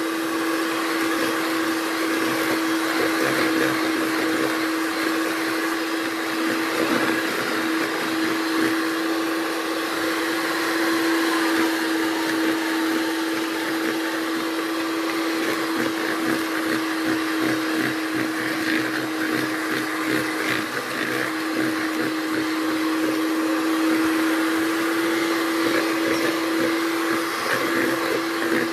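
Kenwood electric hand mixer running steadily at one speed, its beaters whipping egg yolks and sugar, with an even motor hum.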